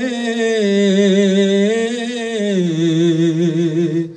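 A man's voice singing one long drawn-out note of a devotional manqabat, wavering as it is held. The pitch steps down about halfway through and again later, and the note breaks off near the end.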